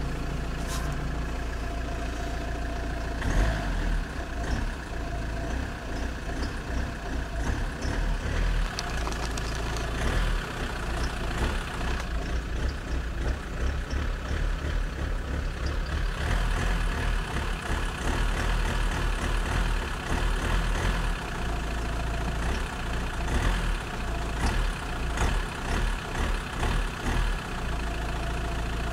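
Fiat 1.9 JTD 105 turbodiesel engine idling cold, with an irregular creaking coming and going over the steady engine sound. The creak is the fault being shown, a noise that appears when the engine is cold.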